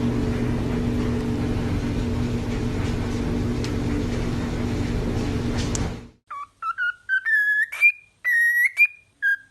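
A steady background hum and noise that cuts off abruptly about six seconds in. It is followed by a run of short, clear whistled notes that step upward in pitch.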